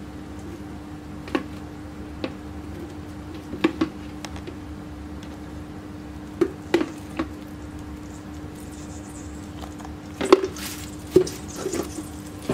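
A metal spoon clicking and scraping against a stainless steel pot and jar while ghee is spooned into the pot, a few separate clinks with a cluster near the end, over a steady low hum.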